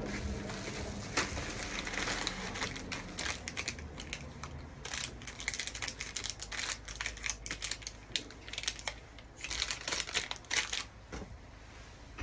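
Packing material being handled during an unboxing: crinkling and rustling, with irregular sharp clicks and crackles that get busier about halfway through.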